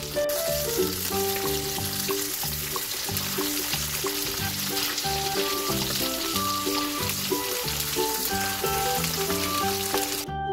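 Mackerel fillets frying in oil in a frying pan: a steady sizzle, with background music under it.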